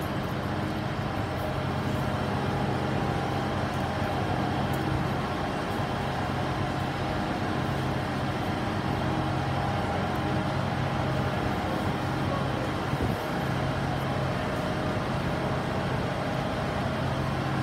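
Class 158 diesel multiple unit standing still with its diesel engine idling: a steady low hum.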